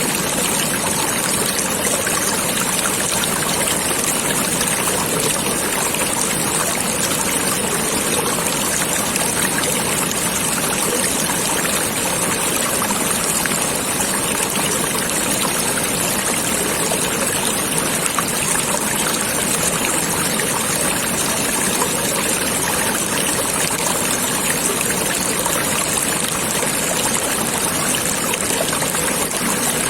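Stream water flowing and trickling, steady and unbroken.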